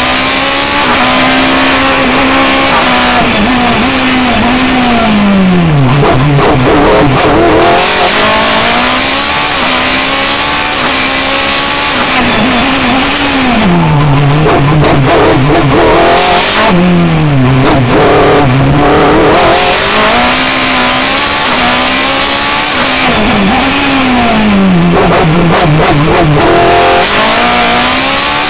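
Racing car's engine heard from the cockpit, loud and revving hard through the gears; its pitch falls steeply about four times under braking and downshifts, then climbs again under acceleration.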